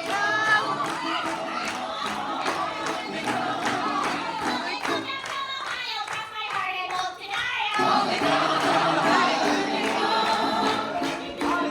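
Live stage-show music: performers singing together over the band, with rhythmic clapping.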